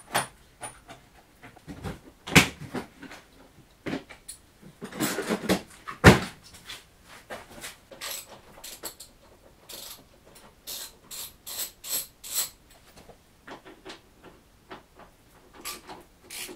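Clicks, knocks and clatter of hand tools and metal parts being handled during motorcycle work, with a stretch of scraping or rattling around five seconds in, one sharp knock just after, and quicker ticking clicks in the second half.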